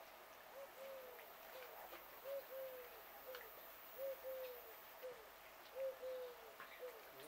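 A dove cooing, a phrase of three soft notes (short, long, short) repeated four times about every second and a half, with a few faint clicks.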